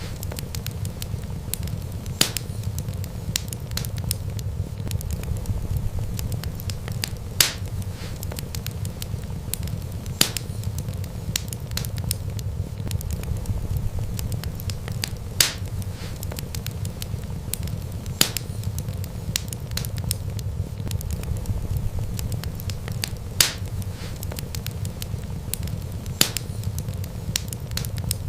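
Wood fire burning: a steady low rumble of flames with sharp crackling pops every few seconds.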